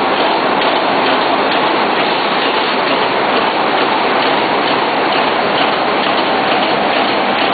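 Spot welding machine welding wire fan-guard joints one after another, its weld sparks giving a steady crackling noise with no pauses.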